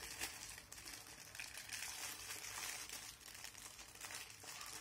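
Thin plastic wrapping crinkling in short, irregular rustles as a small toy piece is handled and unwrapped by hand.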